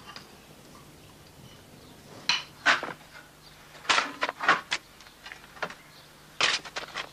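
Spades digging into earth and soil being shovelled into a metal wheelbarrow: a handful of short scrapes and thuds, starting about two seconds in.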